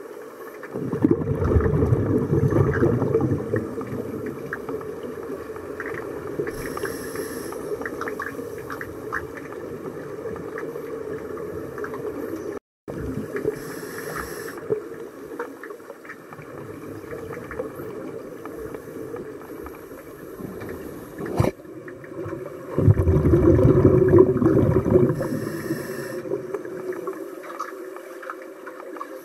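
Scuba regulator exhalations heard underwater through a camera housing: bubbling with a low rumble, loudest about a second in and again a little past the two-thirds mark. A single sharp click comes shortly before the second loud stretch.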